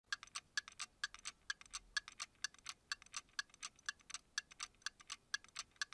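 Steady clockwork ticking, a louder tick about twice a second with fainter ticks between.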